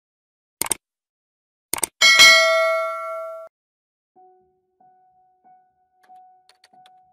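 Sound effects for an animated subscribe button: two quick pairs of mouse clicks, then a bright bell ding that rings out for about a second and a half. Faint short beeps follow.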